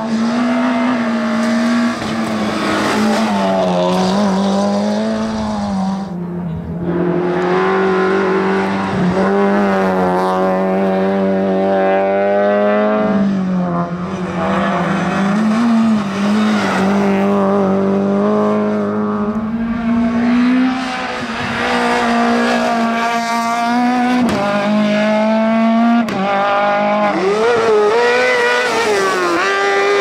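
Hillclimb race cars, among them a Peugeot 206 and a Renault Clio, accelerating hard through bends one after another. Each engine note climbs through a gear and drops at the shift.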